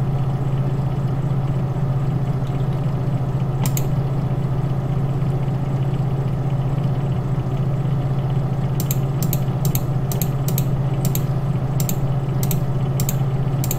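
Computer mouse clicking over a steady low hum. There is a single click about four seconds in, then a run of about ten clicks, roughly two a second, in the second half, as a calendar's previous-month arrow is clicked month by month.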